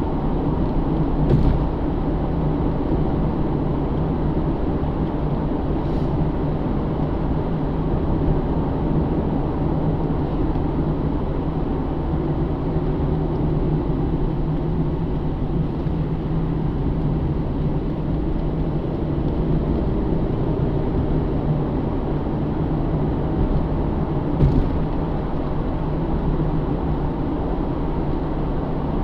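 Inside the cabin of a 2009 Pontiac G8 GT cruising, its 6.0-litre V8 droning steadily under road and tyre noise. A few brief clicks cut through, about a second and a half in, around six seconds, and near the end.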